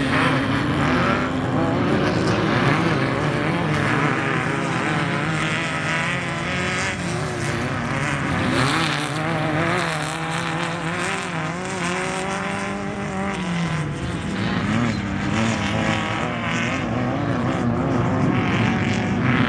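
Off-road race vehicles' engines running hard on the course, several at once, their pitch rising and falling with the throttle as they pass.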